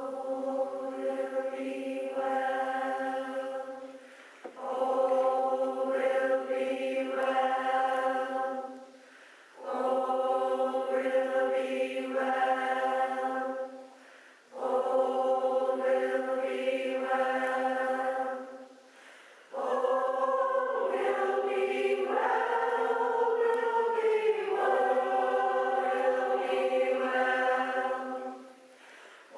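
Mixed choir singing in phrases of about four seconds each with short breaks between them, the last phrase longer, about nine seconds.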